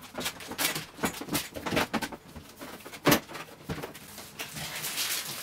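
Sealed plastic bags of LEGO Technic parts crinkling as they are handled and spread on a table, with the loose plastic pieces inside clattering and a series of knocks, the strongest about three seconds in.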